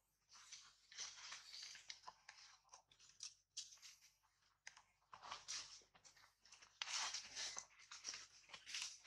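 Dry fallen leaves crackling and rustling in irregular bursts as macaques shift and move on them.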